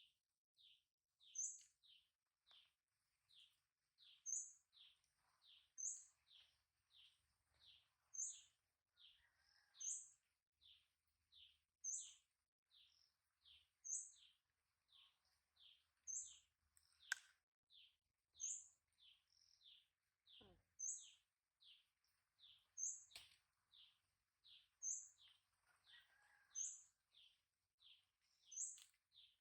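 Baby chicks peeping: short, high, downward-sliding peeps repeating about twice a second, with two sharp clicks partway through.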